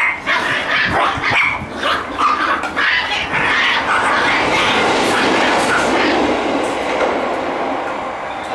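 Shiba Inu puppies giving short, repeated barks as they play-fight, several in quick succession over the first few seconds. A steady rushing noise with a low rumble then takes over and eases off near the end.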